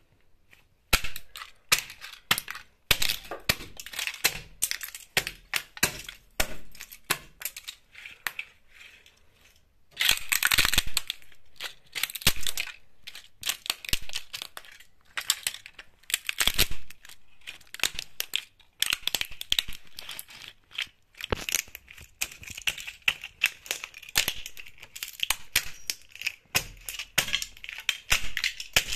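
Model airplanes crunching and snapping under espadrille wedge sandals as they are stamped on: an irregular string of sharp plastic cracks and crackles, densest and loudest about ten seconds in and again around sixteen seconds.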